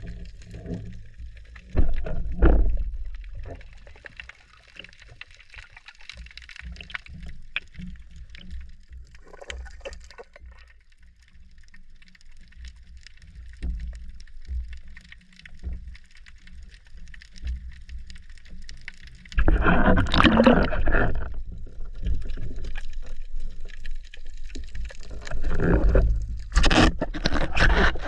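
Water sloshing and gurgling around a spearfisher's camera in the sea, with two longer, louder rushes of water, one about twenty seconds in and one near the end.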